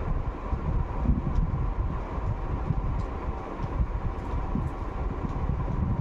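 Steady low rumble with a faint hum, and a few faint ticks as a screwdriver turns a screw into an air rifle's stock.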